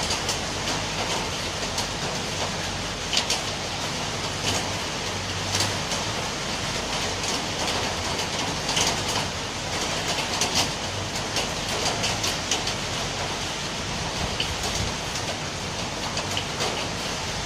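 Steady rain falling, a dense even hiss with scattered sharper drops and drips ticking through it.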